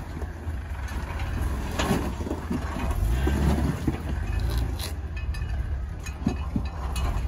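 Jeep Wrangler engine running at low revs as it crawls up a steep rock ledge, with a steady low rumble, tyres grinding over rock, and a few sharp knocks from the rig against the stone.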